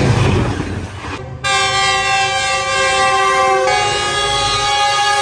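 Rumble of a moving train, then from about a second and a half in a diesel locomotive's air horn sounding one long, steady blast of several notes at once.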